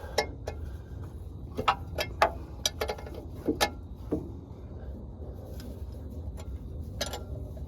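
Irregular metallic clicks and clinks from a crow's foot wrench working the last flywheel nut of the transmission install. They are spread over the first four seconds or so. After that only a steady low hum is left.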